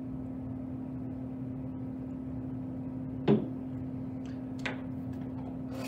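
A bottle set down on a table with a single sharp knock about three seconds in, followed by a lighter click, over a steady low hum.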